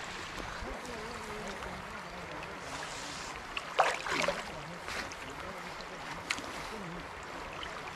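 Steady rush of flowing floodwater and wind, with water splashing as a fine-mesh fishing net is hauled through the shallow stream. The splashing is loudest about four seconds in, with smaller splashes after it.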